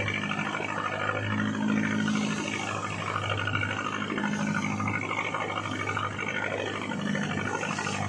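A boat engine running steadily with a low hum, under the rush and splash of rough waves breaking against a wooden hull, with wind. The water noise swells several times as the waves strike.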